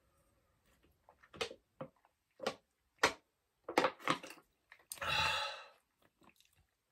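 Drinking water from a small plastic bottle: a scatter of short clicks and gulps, with a short breathy rush about five seconds in.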